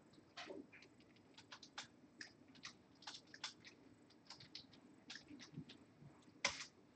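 Faint, irregular typing on a computer keyboard: light key clicks a few times a second, with one sharper click near the end.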